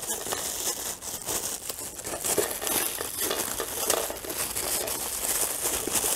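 Thin plastic packaging bag crinkling and rustling as it is handled and pulled open to unwrap a part, with small irregular crackles.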